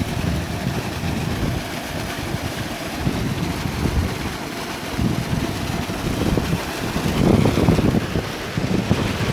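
Heavy stream of water gushing from a solar-powered tube well's discharge pipe and splashing into an earthen channel, with wind buffeting the microphone.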